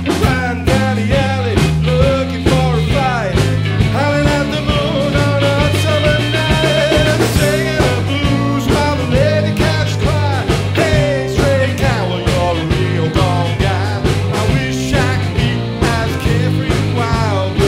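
Rockabilly band playing live: electric guitar lead lines with bent notes over a walking electric bass line and a steady beat.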